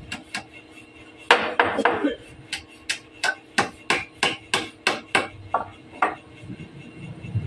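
Hammer knocking the joints of a hardwood table frame together: a quick cluster of blows, then steady single taps about three a second that stop about six seconds in.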